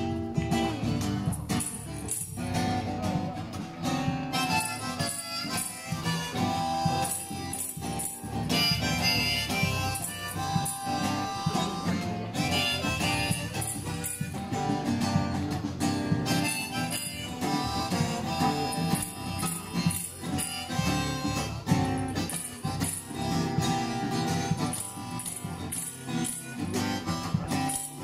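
Live harmonica played from a neck rack over strummed guitar: an instrumental folk passage.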